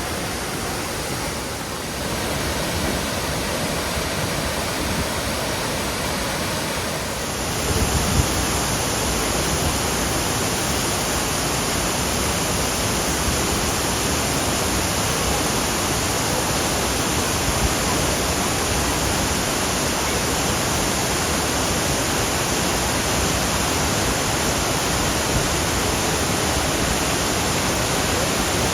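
Iruppu Falls' water pouring down: a steady, dense rush of noise that gets louder about seven seconds in.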